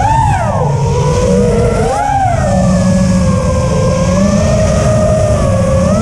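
Brushless motors and propellers of a 5-inch FPV quadcopter whining in flight, heard from its onboard camera. The pitch swoops up and down with the throttle near the start and again about two seconds in, then holds fairly steady. A low wind rumble sits underneath.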